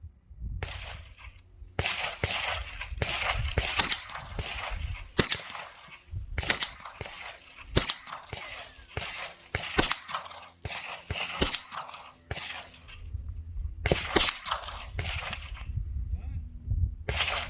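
.22 rifle shots fired one after another in quick, irregular succession, about two dozen in all. Wind rumbles on the microphone at the start and again near the end.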